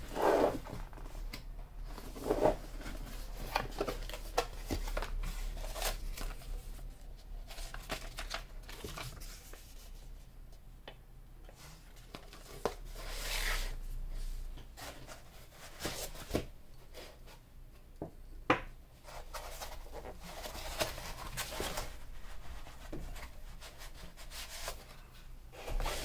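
A cardboard product box being opened and unpacked by hand: rustling and scraping of cardboard and paper packaging, with scattered sharp clicks and light knocks as pieces are lifted out and set down.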